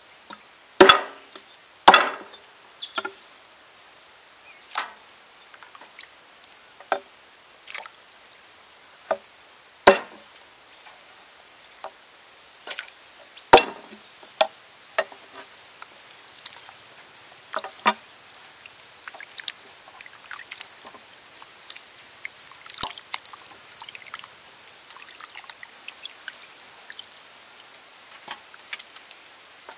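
Steel cleaver chopping through pork ribs on a wooden chopping board: single sharp chops a second or more apart, loudest and most frequent in the first half and growing sparser, with quieter handling of the meat later. A short high chirp repeats about once a second in the background.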